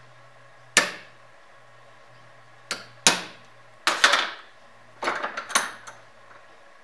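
Hammer striking a steel punch to mark metal blocks clamped in a bench vise: sharp metallic strikes, one about a second in and pairs near three and four seconds, then a quick run of lighter metal knocks and rattles near the end.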